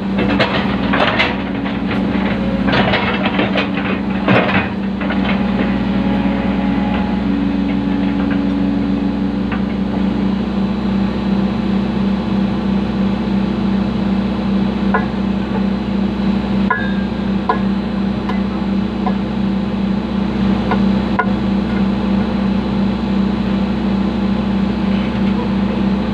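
Excavator's diesel engine running steadily, with a run of knocks and clanks over the first few seconds and a few sharp clicks later on.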